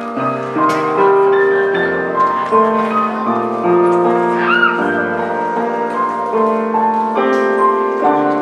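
Grand piano played solo: a melody of single notes over held chords, the notes changing every half second or so.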